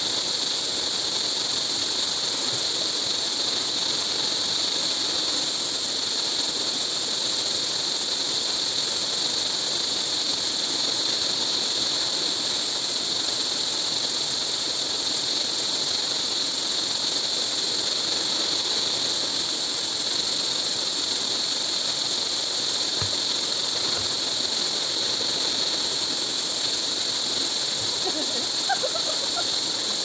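Steady rushing water of a river and waterfall, an even hiss that does not change.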